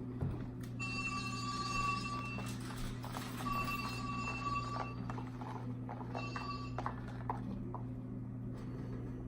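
Small irregular clicks and squelches of sticky homemade slime being worked by hand, over a steady low hum. A held high tone sounds three times: twice for about a second and a half, then once briefly.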